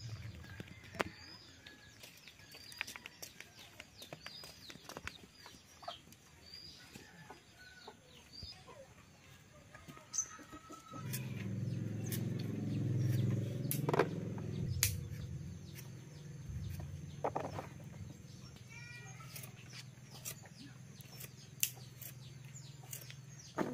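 Green papaya being sliced on a boti, a fixed curved blade, with repeated sharp clicks and taps of blade through fruit. Chickens cluck around it. A low rumble comes in about halfway and is the loudest sound.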